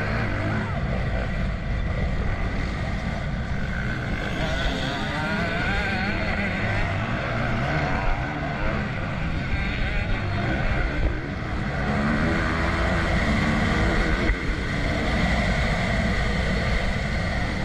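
Motocross bike engine heard from the rider's onboard camera, its revs rising and falling as it is ridden hard along the track, with wind noise on the microphone. It gets a little louder in the second half as the bike picks up speed.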